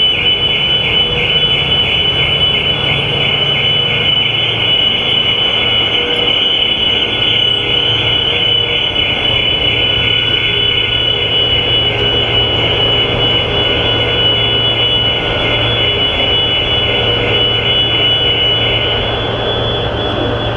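Car alarms sounding on a ferry's car deck, a high pulsing tone set off by the ship's motion as it turns, cutting off near the end. A steady low hum runs underneath.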